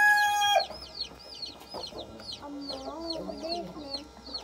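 A brooder full of baby chicks peeping: many high, short, falling peeps, several a second, with some lower wavering calls about three seconds in. A loud steady horn-like tone sounds first and stops about half a second in.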